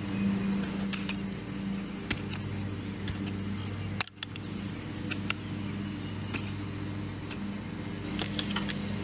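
A metal garden hoe chopping into soil, giving scattered sharp clicks and knocks as the blade strikes earth and small stones, the sharpest about four seconds in, with a cluster near the end. A steady low hum runs underneath.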